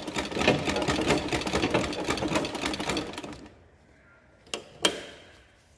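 Treadle-driven flat-bed sewing machine stitching leather: a rapid, steady clatter of stitches that stops about three seconds in, as the stitching halts at a corner. Two sharp clicks follow near the end, about a third of a second apart.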